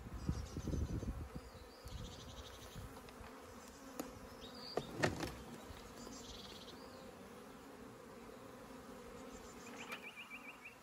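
Honeybees buzzing around an open hive where a swarm is clustered on the frames: a steady hum, with a couple of sharp knocks about four and five seconds in.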